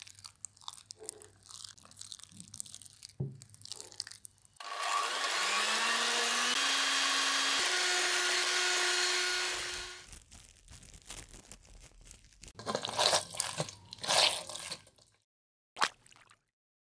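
Electric hand mixer whipping non-dairy whipping cream in a bowl. It starts about five seconds in, runs steadily for about five seconds, and its motor pitch steps up twice as the speed is raised. A few sharp knocks follow near the end.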